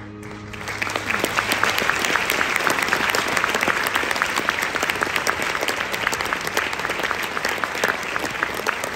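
An audience applauding, the many hand claps breaking out about half a second in as the held closing notes of the music stop.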